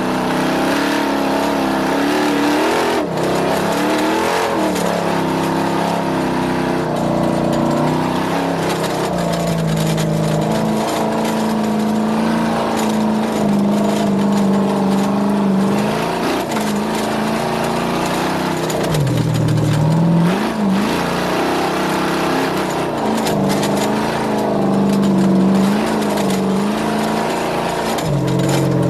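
Off-road race vehicle's engine running hard, its revs rising and falling continually. The revs drop sharply about two-thirds of the way in and again near the end. A steady rushing hiss runs underneath.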